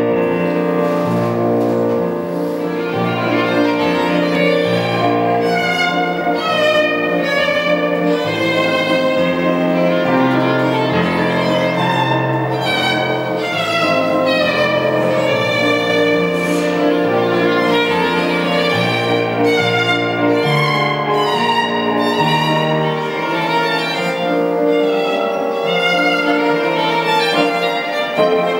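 Violin playing a slow melody with vibrato over an electronic keyboard accompaniment, whose low notes change in steady steps underneath; the music plays on without a break.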